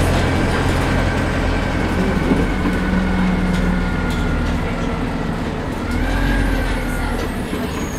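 Dennis Dart MPD single-deck bus's diesel engine and driveline heard from inside the saloon while the bus is driven hard: a steady engine drone with a thin high whine over it. The engine note shifts about two and a half seconds in, and the whine bends upward near the end.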